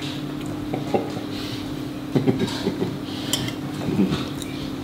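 Knives and forks clinking and scraping on ceramic plates as pancakes are cut and eaten, in a few short clusters with the busiest a little past the middle, over a steady low hum.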